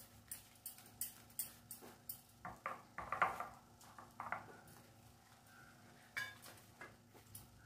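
Light, irregular clinks and scrapes of a utensil against a dish as gram-flour paste is spread over a colocasia (taro) leaf. The taps come thickest in the first four and a half seconds, with a few more a little after six seconds.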